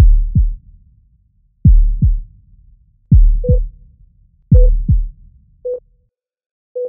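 Electronic intro sound effect of a heartbeat: four deep double thumps about a second and a half apart. From about halfway, short beeps at one steady pitch join in, four in all, spaced about a second apart.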